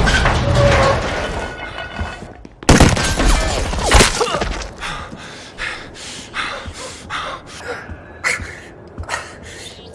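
Action-film sound effects: a loud crash with a ringing tail about three seconds in and another heavy hit a second later, followed by a scattering of smaller sharp knocks and clicks.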